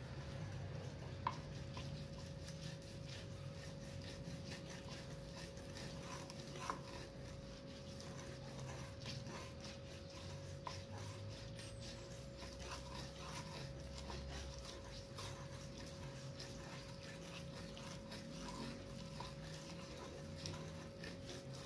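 A pestle being scraped and rubbed over a flat stone mortar (ulekan on cobek) as rujak sauce of ground peanuts is mashed by hand, with many small irregular clicks and gritty scrapes and a few sharper knocks, one a little over a second in and one near seven seconds.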